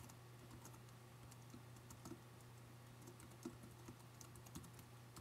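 Faint typing on a computer keyboard: irregular key clicks as a line is typed, over a faint steady hum.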